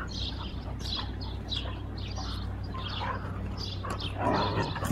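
Birds chirping in a quick series of short high calls throughout. About four seconds in, a louder burst of dog vocalizing comes from dogs play-fighting.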